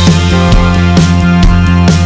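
Loud background music with a steady beat, about two beats a second.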